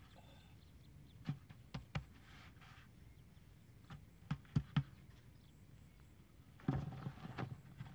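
Hands pressing and patting clods of damp soil around a plastic basin: scattered dull thuds, two or three at a time, with a longer scuffling run of them near the end.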